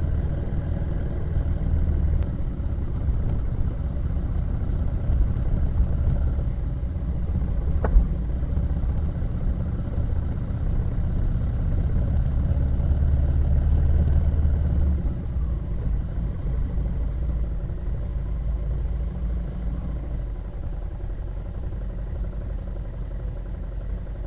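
A vehicle on the move: a steady low engine and road rumble that eases somewhat about fifteen seconds in, with a single sharp click about eight seconds in.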